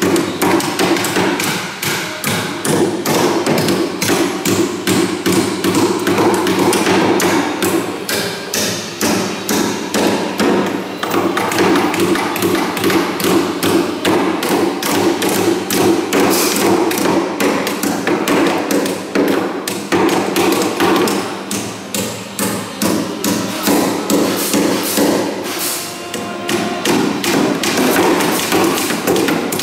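Hammers striking wood in quick, uneven strokes, several a second and overlapping, as a wooden king boat is built.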